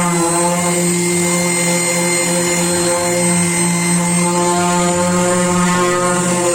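A power tool's motor running steadily at high speed with an even whine.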